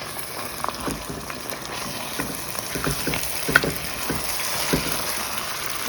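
Lamb shanks frying in a pot: a steady sizzle with scattered short clicks through it.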